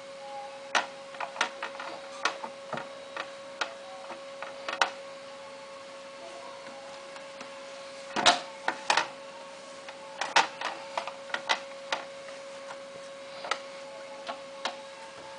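Irregular sharp clicks and taps as a laptop is handled and rubbed down with a cloth on a glass tabletop, loudest about eight seconds in, over a steady faint hum.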